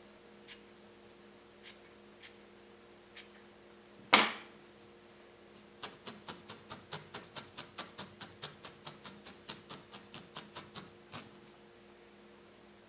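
Barbed felting needle stabbing repeatedly into wool on a burlap-covered felting pad: an even run of soft pokes, about four a second, through the second half. Before that come a few light scissor snips trimming the wool and one louder knock about four seconds in.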